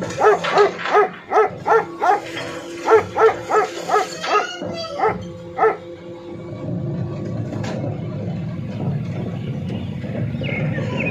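A dog barking repeatedly, a dozen or more quick barks over about six seconds. After that, a steady low rumble from the refuse truck's engine and bin-lift hydraulics takes over.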